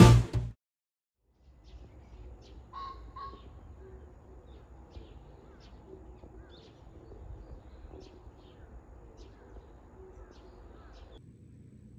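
Acoustic guitar music cuts off in the first half second. Then small birds chirp and call among pine trees over a low steady outdoor rumble, with a louder call about three seconds in. The birdsong stops suddenly near the end.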